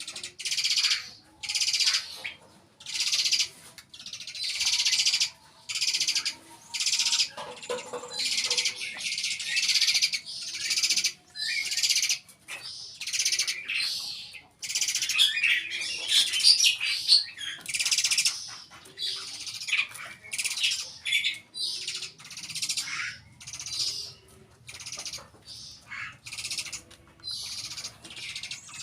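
Nestling birds calling over and over in high, hissy bursts of about half a second to a second each, with short gaps between them.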